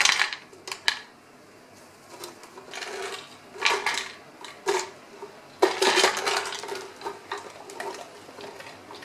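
Dog nosing and pawing at a homemade puzzle toy to get treats out: irregular clattering and knocking, loudest in clusters about four and six seconds in.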